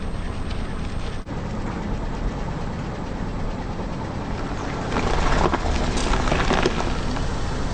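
Car engine running at low speed, with crackling crunches between about five and seven seconds in as the tyres crush objects.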